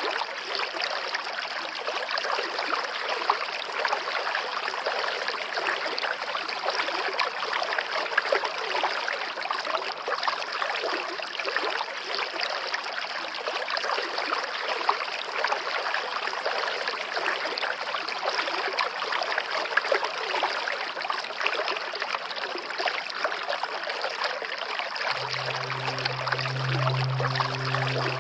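Water flowing and trickling steadily in a stream, a dense even rush. A low steady hum with faint higher tones comes in near the end.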